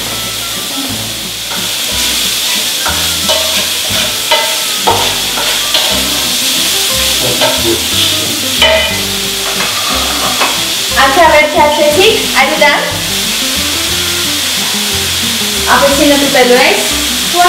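Onion and garlic frying in oil in a pan, with a steady sizzle and stirring: a light sauté (zazharka) for spinach. A few brief pitched sounds rise over it about two-thirds of the way through and again near the end.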